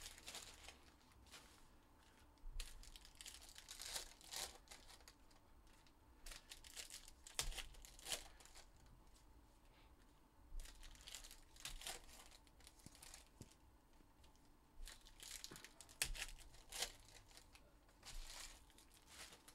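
Trading card pack wrappers being torn open and crinkled, in short clusters of tearing and rustling every few seconds.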